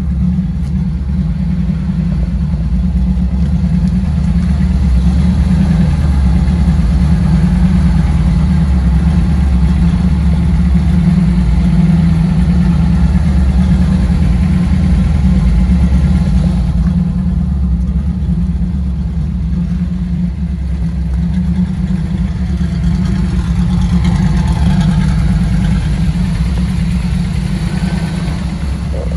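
1970 Chevrolet C10 pickup's 350 cubic-inch V8 idling steadily.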